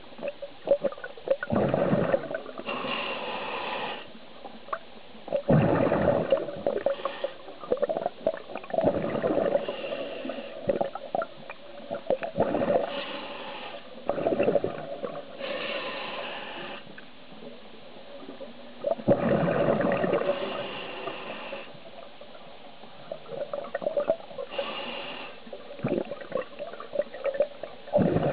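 Scuba diver breathing through a regulator underwater, a breath every few seconds: a hiss on each inhale and a gurgling rush of exhaled bubbles.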